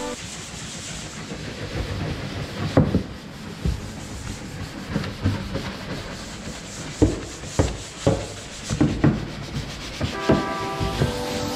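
Hand brushes scrubbing the wet hull and deck of a Sea-Doo Spark jet ski, with irregular knocks and clatter between the strokes. Background music comes back near the end.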